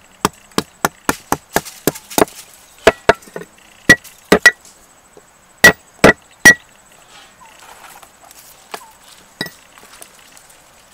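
Steel cleaver chopping on a wooden stump block. About four quick chops a second over the first two seconds, then heavier, more widely spaced blows, each with a short ringing note from the blade, up to about six and a half seconds in. After that come only a few light knocks.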